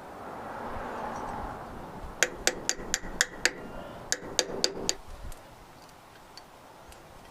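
Hand-tool work on a trailer's electric drum brake: a run of about ten sharp taps, roughly four a second with a short break, after a rising rustling noise.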